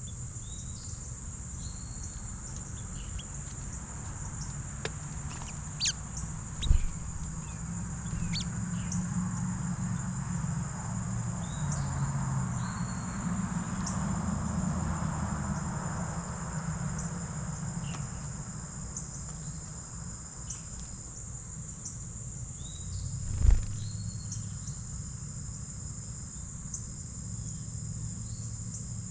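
Crickets trilling steadily in a high, unbroken band, with short bird chirps scattered over them. Two sharp thumps stand out as the loudest sounds, one about a quarter of the way in and one about four-fifths through.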